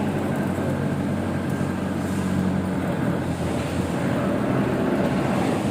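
Engine of a small lifting machine running steadily while it hoists a load on a hook.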